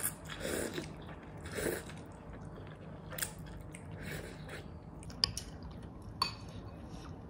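Noodles being slurped and chewed: two slurps in the first two seconds, then quieter chewing with a few short clicks.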